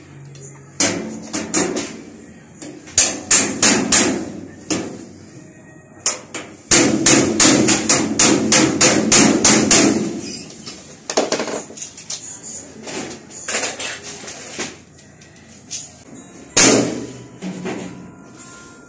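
Sheet-steel cabinet panels being struck to knock them together during assembly: quick runs of hard knocks, several a second. The longest run starts about seven seconds in and lasts some three seconds, with scattered knocks after it and one last loud knock near the end.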